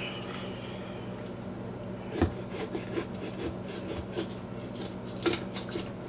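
A kitchen knife sawing through the backbone of a raw whole chicken on a wooden cutting board: a run of short, irregular scraping and cracking strokes starting about two seconds in, the strongest at the start of the run and again near the end, over a low steady hum.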